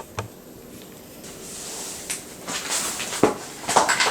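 Scratchy rubbing of colouring on workbook paper, with a few light taps and knocks of handling; the scratching grows stronger in the second half.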